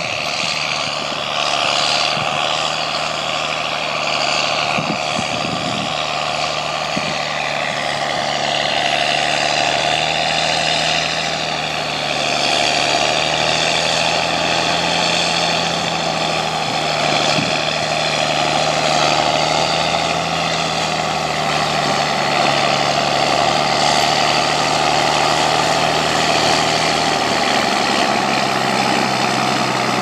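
A John Deere 7810 tractor's six-cylinder diesel engine runs steadily under load as it pulls a cultivator through dry stubble. The sound grows gradually louder as the tractor comes closer, and the engine note drops a little near the end.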